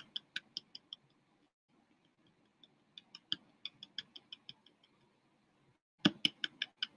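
Typing on a computer keyboard: short runs of light key clicks, about five a second, in three bursts with pauses between, the last burst near the end the loudest.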